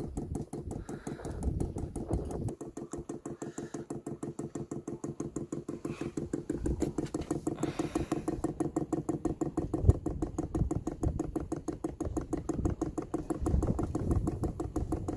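A 12 V diesel heater's fuel dosing pump clicking in a rapid, even rhythm while priming, drawing diesel up the fuel line and into the filter.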